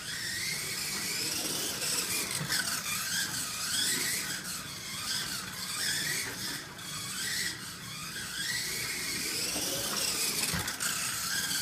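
Kyosho Mini-Z MR-03 radio-controlled car's stock electric motor and gears whining at a high pitch, rising and falling again and again as it speeds up and slows around the track, over a steady hiss.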